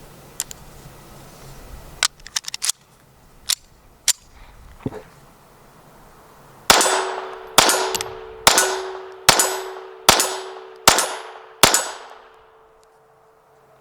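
Langenhan .32 ACP semi-automatic pistol firing seven shots in a steady string, a little under a second apart, each with a short echoing tail. A few sharp clicks come before the shots, and a steady ringing tone hangs on through and after them.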